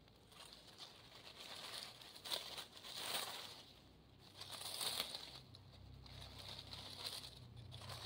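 Dry fallen leaves crinkling and rustling close to the microphone as fingers pull the leaf litter aside, in several uneven bursts, the loudest about two, three and five seconds in.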